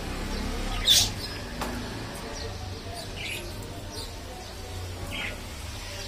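Pet budgerigars chirping in short, scattered calls, with one sharp, loud chirp about a second in.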